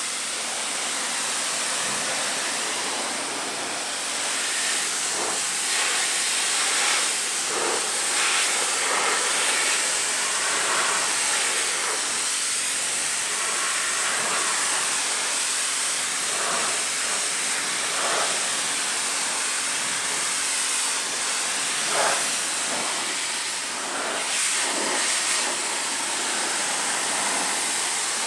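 Pressure-washer jet spraying water against a car's bodywork and wheel: a steady, loud hiss that shifts a little as the jet moves over different surfaces.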